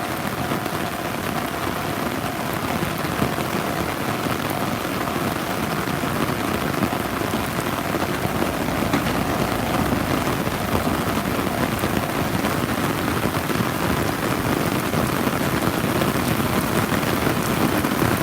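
Very heavy rain pouring steadily, a dense hiss of drops.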